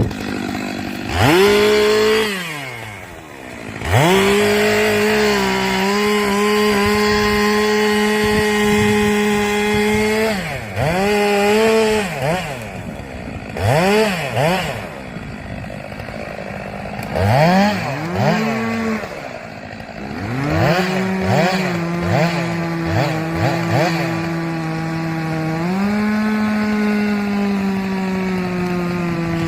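Stihl two-stroke chainsaw cutting locust wood, held at full throttle in two long steady stretches. Between them it is revved up and down in quick blips.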